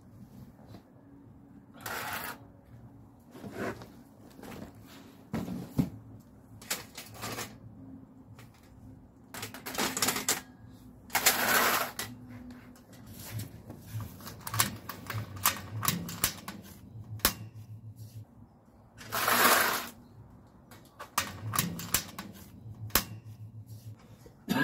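Stainless-steel panels and frame of a folding camping grill clinking and clicking as it is unfolded and fitted together, with a few longer scrapes of metal sliding along metal.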